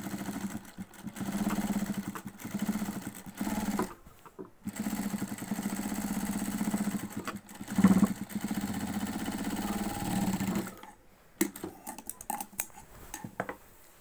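Industrial sewing machine stitching trouser fabric while back-tacking a seam: three or four short runs, then a longer run of about six seconds that stops about eleven seconds in. A few sharp clicks follow.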